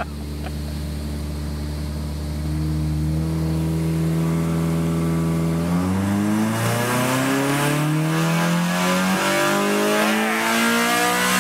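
Honda K24 four-cylinder engine under full load on a chassis dyno. It holds a steady note at first, then its pitch climbs steadily as it is ramped through the gear, rising faster from about six seconds in toward high revs.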